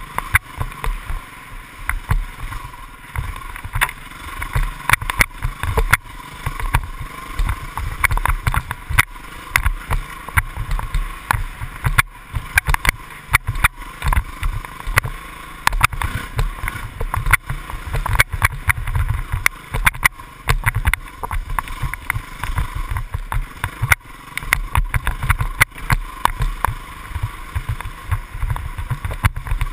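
Dirt bike engine running under way on a rough trail, muffled as heard by an on-board action camera, with frequent irregular knocks and rattles from the bumps.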